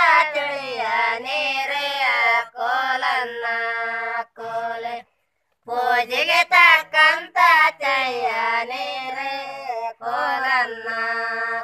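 Women singing a Kannada Gowri festival folk song without accompaniment, in high voices with long, wavering held notes. There is a short pause about five seconds in before the singing picks up again.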